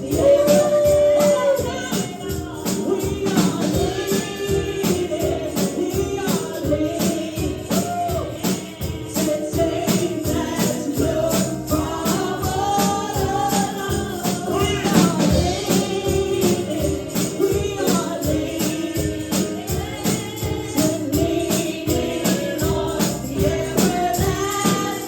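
Gospel praise-and-worship music: voices singing together over a tambourine shaken and struck in a quick, steady beat.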